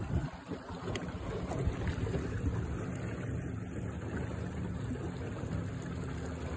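Aluminium jon boat under way on a Minn Kota Endura Max 45 electric trolling motor at full speed: water washing along the hull with a steady low hum, and wind buffeting the microphone.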